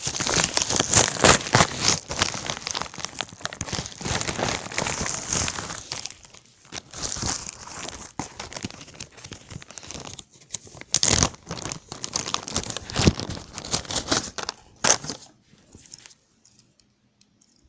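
Packaging being crinkled, crumpled and torn open close to the microphone, with a few sharp knocks from handling, dying away near the end.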